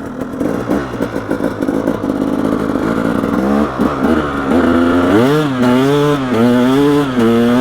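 KTM 300 XC's single-cylinder two-stroke engine being ridden: it runs at low, uneven revs at first, then from about halfway through it revs up and down with the throttle, with one strong climb in pitch.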